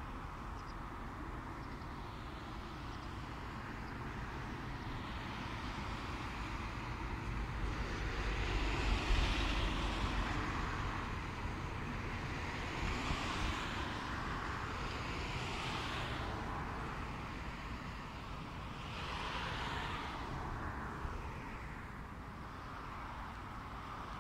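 Wind blowing over the microphone: a gusting rumble that swells and fades, loudest about nine seconds in, with hissing rises several times.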